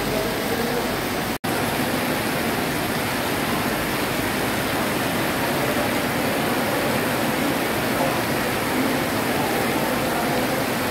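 Heavy rain pouring steadily onto a paved road and open ground: a dense, even hiss. The sound cuts out for an instant about a second and a half in, then the same downpour carries on.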